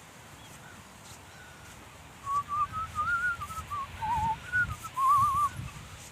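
A person whistling a short wavering tune close to the microphone, starting about two seconds in and stopping shortly before the end, with faint distant bird calls behind it.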